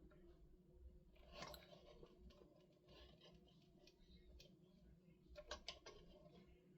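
Near silence with a low hum, broken by faint handling sounds: a soft scrape about a second and a half in and a few quick clicks near the end.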